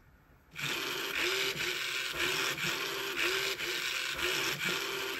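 Two small yellow TT gear motors with plastic gearboxes driving a two-wheeled robot, whirring and grinding. The sound starts about half a second in, and its pitch briefly rises and falls about twice a second as the robot drives and turns on the tabletop.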